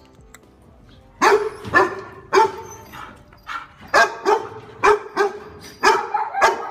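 A dog barking repeatedly. The barks start about a second in and come in quick runs of two or three.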